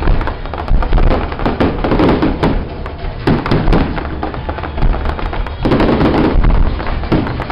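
Fireworks display: aerial shells launching and bursting in quick succession, a continuous run of many loud bangs and pops with heavier clusters every second or two.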